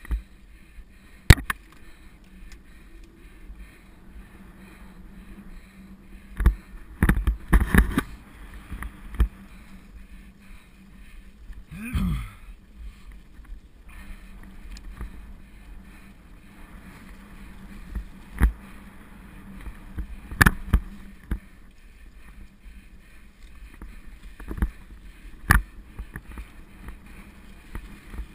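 Mountain bike rolling along a leaf-covered dirt singletrack: a steady low rumble broken by sharp knocks and rattles as the bike hits bumps, with a cluster of them about seven to eight seconds in. About twelve seconds in, a short sound falls in pitch.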